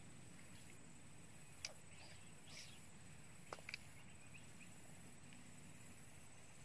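Near silence: quiet waterside background with a few faint sharp clicks and two brief faint chirps.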